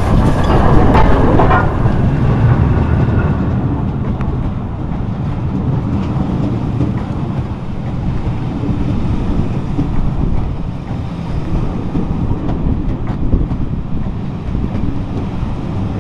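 The Peppercorn A1 Pacific steam locomotive 60163 Tornado passes close by, loudest in the first two seconds. Its train of coaches then rolls past slowly with a steady low rumble of wheels on rail.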